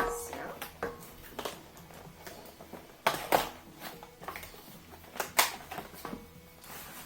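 A cardboard product box being opened and its contents unpacked by hand: irregular rustling, scraping and light knocks of cardboard and packaging, loudest in two short flurries past the middle.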